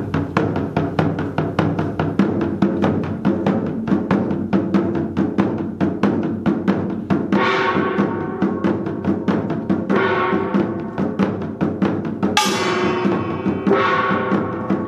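Korean pungmul percussion: janggu and buk drums playing a fast, even rhythm of about five strokes a second. From about seven seconds in, a few bright metallic strikes ring out over the drumming.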